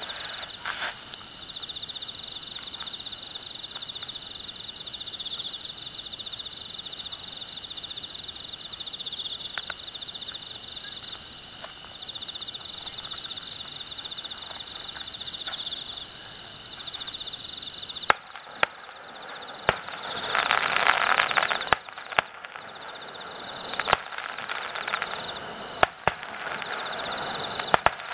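Insects chirping in a steady, pulsing drone. About two-thirds of the way through, distant fireworks shells start to bang, sharp and sudden, roughly every two seconds.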